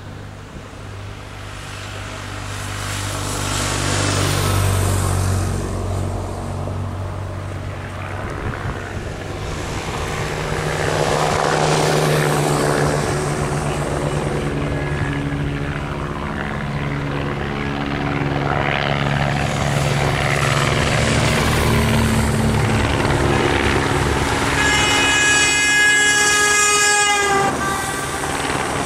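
Race convoy motorbikes and cars driving past, their engine noise swelling and fading in waves. Near the end a horn sounds for about two seconds, its pitch dropping just before it stops.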